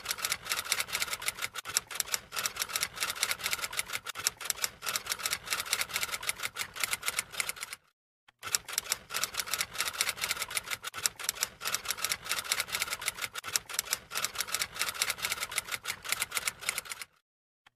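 Typewriter typing sound effect: a rapid, steady run of key clicks that accompanies on-screen text being typed out. It breaks off briefly about eight seconds in and stops just before the end.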